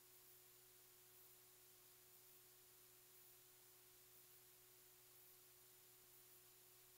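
Near silence: a faint steady hiss with a low, unchanging hum.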